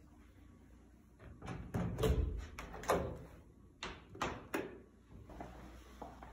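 An interior door being handled: a run of clicks and knocks, with a couple of heavier thumps about two to three seconds in.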